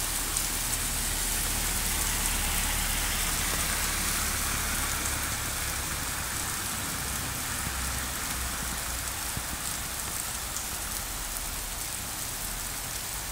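Heavy rain pouring down onto a wet paved street, a steady hiss of drops hitting asphalt and standing water, with a low rumble underneath.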